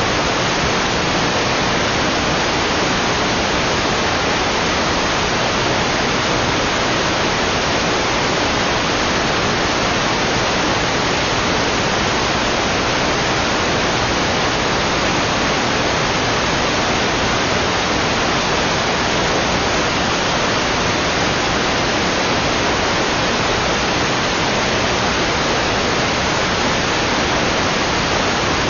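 Steady, loud electronic static hiss, even and unchanging, with nothing else heard: an audio feed carrying only noise.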